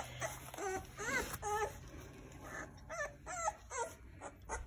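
Young puppies whimpering: a string of about eight short squeaky calls, several rising and falling in pitch.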